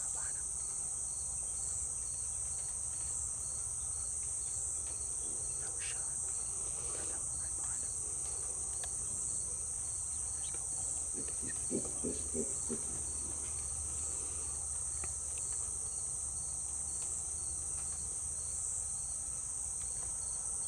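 Steady, high-pitched insect chorus, with a second insect trilling faintly in a quick, even pulse beneath it. A few faint soft taps come about twelve seconds in.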